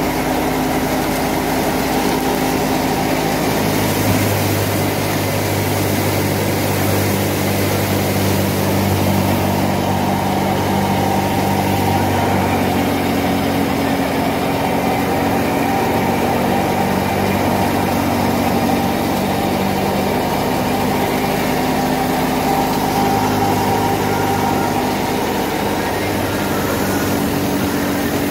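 Wheat threshing machine running steadily, a loud continuous engine-driven drone, its pitch shifting slightly a few times.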